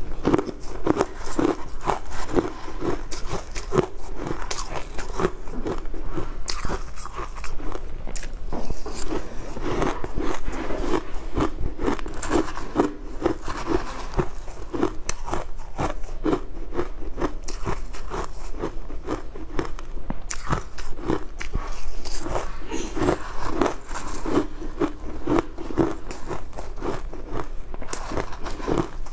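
A steady run of crisp crunches as crushed ice mixed with jelly pieces is bitten and chewed, mouthful after mouthful, with a metal spoon scraping into the ice now and then.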